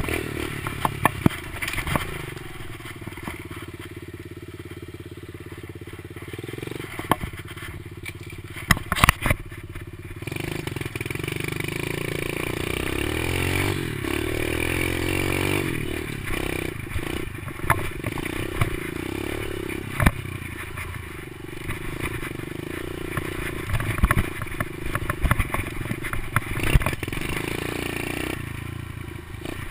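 Kawasaki KLX110 pit bike's small four-stroke single-cylinder engine running under way, its revs rising and falling with the throttle, with a climb in revs about halfway through. Short knocks and rattles come through here and there as the bike goes over bumps.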